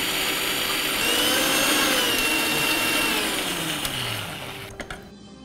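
Electric mixer grinder running, grinding green chillies, coconut and roasted gram with a little water into a wet chutney paste. It winds down and stops about four and a half seconds in, followed by a couple of light clicks.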